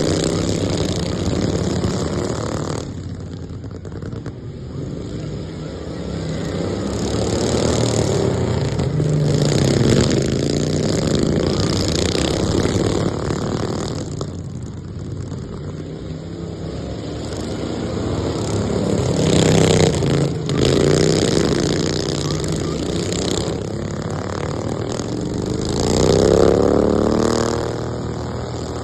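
Racing lawn mowers' small gas engines revving around a track, getting louder and fading again several times as the machines come by and move off.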